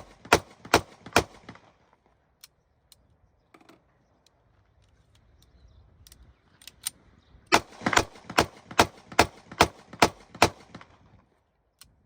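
30 bore (7.62×25mm Tokarev) semi-automatic pistol firing in quick single shots about three a second: the last three shots of a magazine at the start, then a pause of several seconds with a few faint clicks while the magazine is changed, then a string of about eight shots that empties the next magazine.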